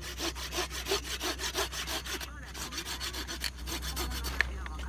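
Hand saw cutting through wood in quick back-and-forth strokes, about four a second, stopping about three and a half seconds in; a single sharp click follows near the end.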